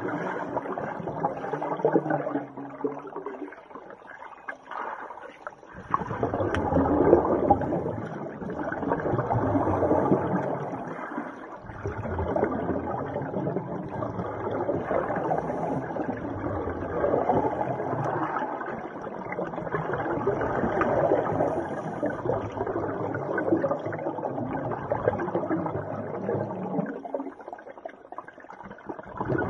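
Muffled underwater noise of scuba divers' exhaled bubbles, swelling and fading every few seconds, with a lull about four seconds in and another near the end.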